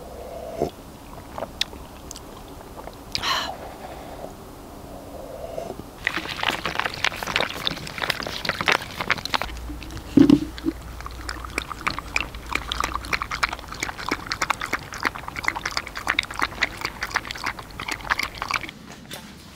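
Two small dogs eating crunchy food from a collapsible bowl: a dense run of crisp crunching and chewing that starts about six seconds in and stops abruptly near the end. Before it, a few light sips and clinks from a mug.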